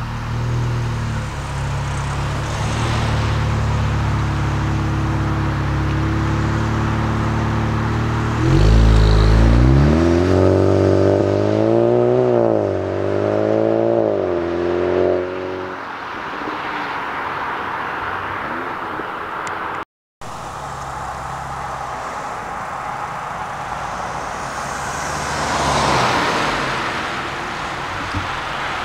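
VW Golf 7.5 GTI's turbocharged 2.0-litre four-cylinder running through an FSW aftermarket exhaust: it idles steadily, then about eight seconds in it is blipped and revved up and down about three times while standing. Later a car passes by, loudest near the end.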